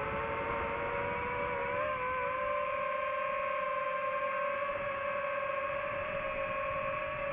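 Quadcopter motors and propellers of a DJI FPV drone whining steadily in flight, rising slightly in pitch about two seconds in and then holding.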